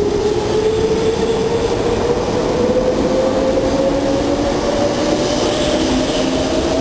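Meitetsu 7000 series Panorama Car electric train pulling past close by as it gathers speed: a whine that rises steadily in pitch over the rumble of the wheels, with a second, lower whine joining in the later half.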